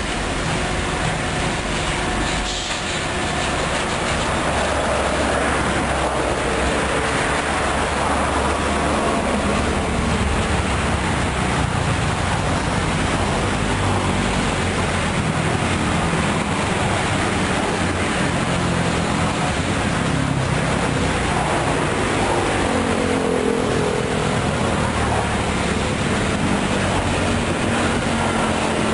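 Loaded dump truck's diesel engine running and manoeuvring slowly, revving up a little about four seconds in, then running steadily.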